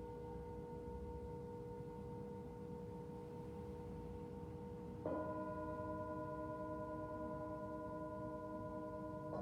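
Tibetan singing bowls ringing with steady, long-sustained tones. About five seconds in, another bowl is struck, adding new pitches over the fading ring.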